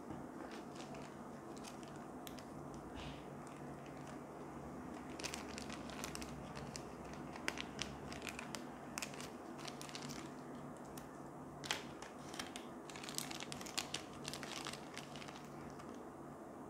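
Small clear zip-lock plastic bag crinkling and rustling as it is handled and opened by hand, with scattered sharp little crackles, busiest through the middle.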